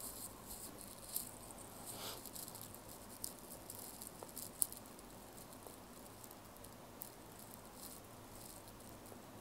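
Faint taps and light scratching of a stylus tip on a tablet's glass screen while letters are written, with a few sharper clicks, the loudest about halfway through.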